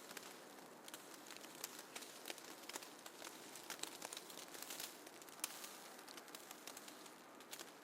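Falling snow: a faint, soft hiss with irregular light ticks and crackles of flakes or ice pellets landing.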